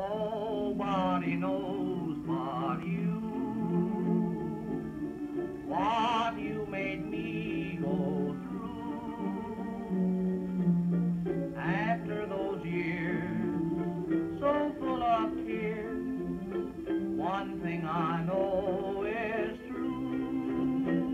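A man sings a slow ballad with a wavering vibrato, accompanying himself with strummed chords on a ukulele, heard through a 1929 sound-film soundtrack.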